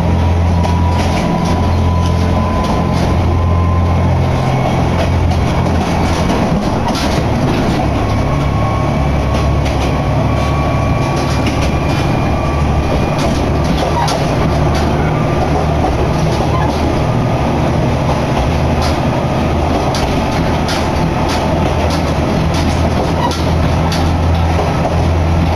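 Cabin noise of a Kanto Railway Joso Line diesel railcar under way: a steady low drone with frequent short clicks from the running gear. A faint whine rises slowly in pitch over the first half.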